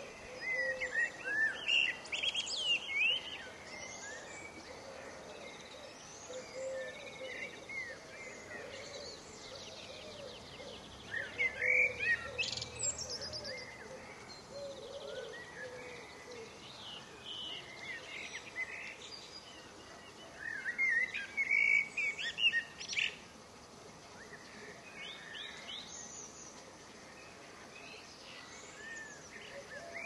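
A small songbird singing in three short phrases of rapid twittering high notes, each a couple of seconds long, with pauses between, over steady outdoor background hiss.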